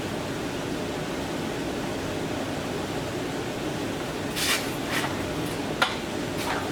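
A steady fan-like hum, with a brief scrape about four and a half seconds in and a couple of short sharp clicks near the end.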